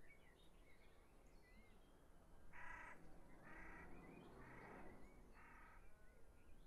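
Faint bird calls: light chirps throughout, and four harsh caws about a second apart in the middle.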